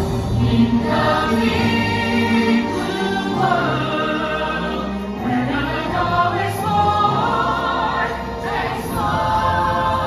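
A stage-musical cast singing together as a chorus over a full orchestral backing track.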